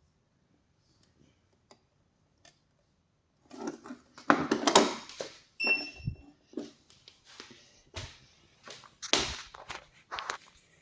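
Quiet at first, then a run of clattering and knocking handling noises, with a short high electronic beep about halfway through.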